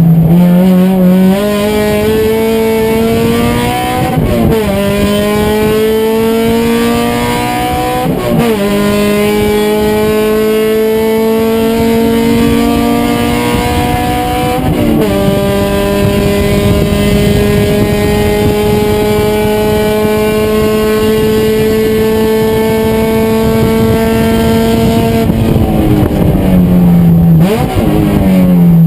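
Race car engine under full throttle, its pitch climbing through each gear with upshifts about 1, 4, 8 and 15 seconds in, then a long pull in the top gear. Near the end the pitch falls in several quick steps as the car downshifts under braking.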